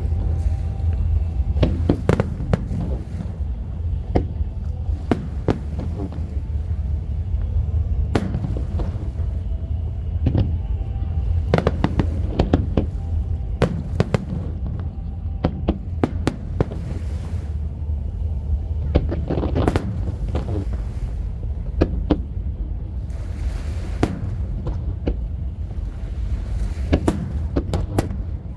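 Fireworks display bursting aloft: many sharp bangs and crackles at irregular intervals, several close together at times, over a steady low rumble.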